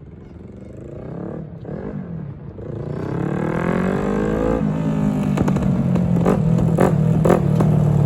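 Yamaha R3 parallel-twin motorcycle engine accelerating and growing louder, its pitch climbing for a few seconds and then dropping sharply about four and a half seconds in. It then runs at a steady lower pitch, at its loudest, with a few sharp clatters.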